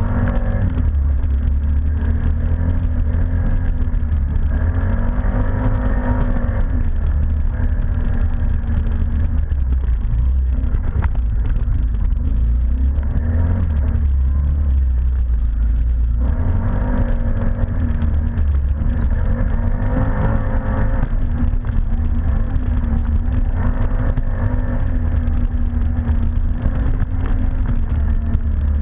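ATV engine running under way, a steady low rumble with its pitch rising and falling with the throttle in several stretches.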